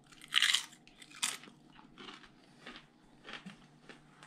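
Crunchy lime-flavoured tortilla chip, loaded with meat, salsa and sour cream, being bitten: two loud crunches in the first second and a half, then softer crunching as it is chewed.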